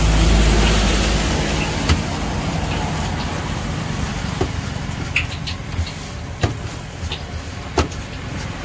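Street traffic: a motor vehicle's engine hums close by, loudest in the first second and then fading into a steady traffic noise. A few sharp clicks and knocks come now and then.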